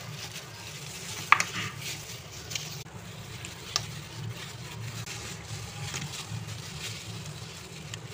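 A hand in a plastic glove mixing chicken drumsticks in a wet yogurt-and-spice marinade in a plastic bowl, making a squelching, rubbing sound. A sharp knock comes about a second in, and a smaller one near four seconds.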